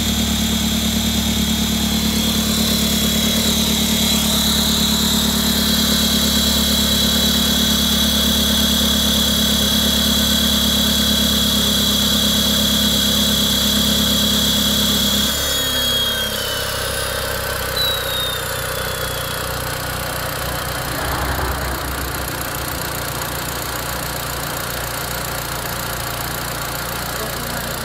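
Audi A3 engine idling after a cold start with a loud, steady, high-pitched screech that slides down in pitch and cuts out about fifteen seconds in. The engine keeps idling more quietly afterwards, with a few faint short squeaks.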